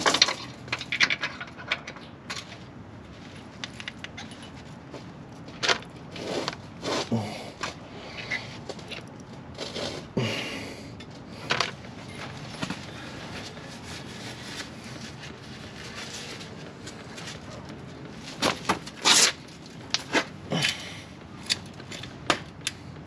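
Scattered metallic clicks, clinks and scrapes of a combination wrench and hand tools working the bottom 12 mm bolt of a clutch slave cylinder, with a quick run of sharper clanks near the end.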